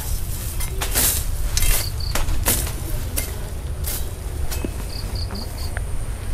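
Wind rumbling on the microphone, with rustling noises about every second in dry field stubble. Two short high chirps sound about two seconds in, and four quick ones follow around five seconds.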